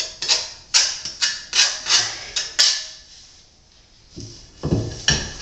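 Trowel buttering thin-set mortar onto the back of a marble chair rail piece: about seven quick scraping strokes, one every half second or so. After a short pause there is a knock near the end.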